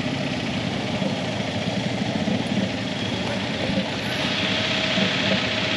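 Several motorcycle engines idling and running together in a steady mix, growing a little louder about four seconds in.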